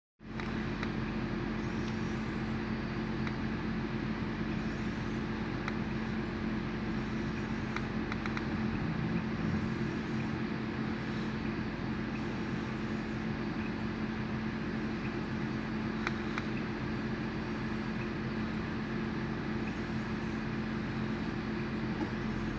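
A steady low mechanical hum with a constant tone, unchanging throughout, with a few faint clicks scattered through it.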